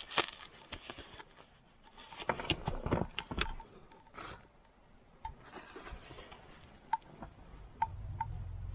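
Scattered clicks, light knocks and scraping rustles of things being handled, with a low rumble coming in near the end.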